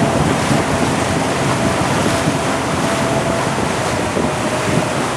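Steady rush of water from a motorboat's wake and wind buffeting the microphone, with a faint steady engine tone underneath as the boat runs at speed.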